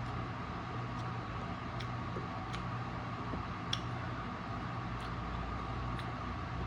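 A steady, fan-like background hum, with faint soft clicks about once a second from eating watermelon with a spoon.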